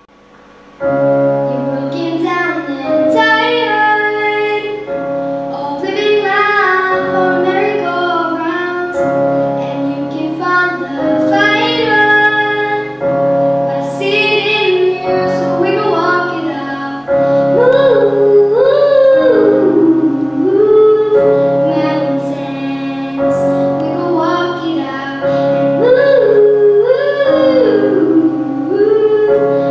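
A child singing a song into a microphone over an instrumental backing track, starting about a second in, with sliding vocal runs on some held notes.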